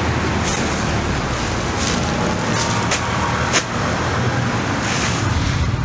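Steady street traffic noise, with a handful of short, sharp sounds over it.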